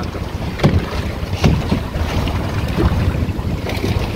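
A small fishing boat underway over choppy water: steady wind buffeting the microphone over the rush of the run, with a few sharp knocks as the hull slaps the waves.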